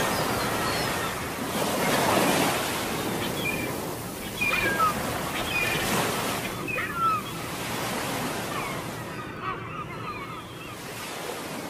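Sea water washing against a concrete seawall, a steady rush of small waves, with a few short high chirps now and then.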